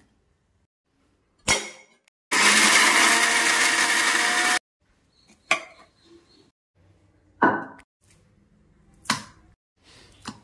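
Electric mixer grinder running for about two seconds, grinding green peas and spinach into a coarse paste in its stainless steel jar, then cutting off suddenly. A sharp knock comes just before it starts, and four more short knocks follow after it.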